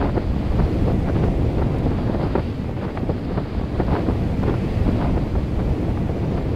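Wind buffeting the microphone outdoors: a steady, loud low rumble with a dense crackling rustle over it.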